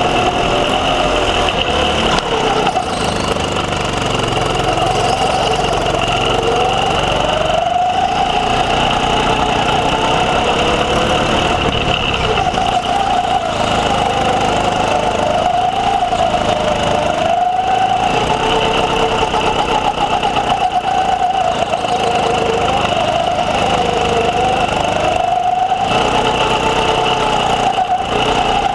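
Go-kart engine at racing speed, revving up on the straights and dropping off into the corners, the pitch rising and falling every couple of seconds.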